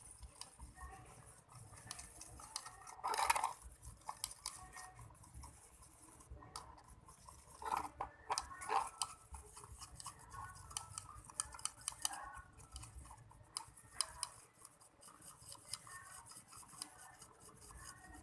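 Utensil stirring and scraping in a container of dish soap and blue food colouring for slime, with irregular clinks and scrapes. A few louder knocks stand out, the loudest about three seconds in.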